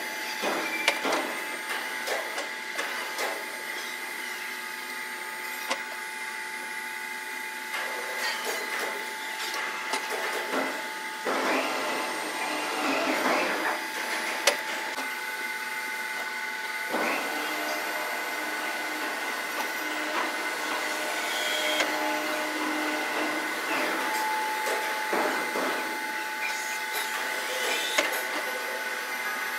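Factory machinery sped up fivefold, with a steady high machine whine. Scattered sharp clicks and knocks and several short noisy surges come through the whine.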